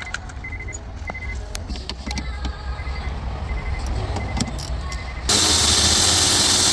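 Light metallic clicks and clinks of a tool working the 8mm bolts under a car radio, with a short high beep repeating every half second or so. A loud, steady hiss cuts in suddenly about five seconds in.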